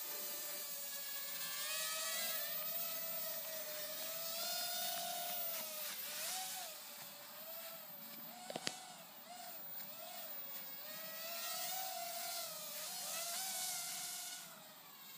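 Small electric motors and propellers of a toy remote-control flying toy whining steadily, the pitch wavering up and down as the throttle is worked. A single sharp click about halfway through.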